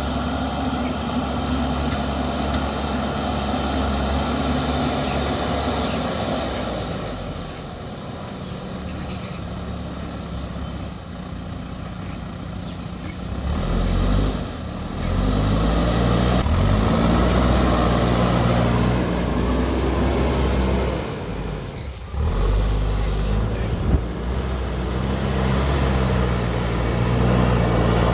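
JCB backhoe loader's diesel engine running steadily, easing off for a few seconds, then revving up and down repeatedly as the machine works.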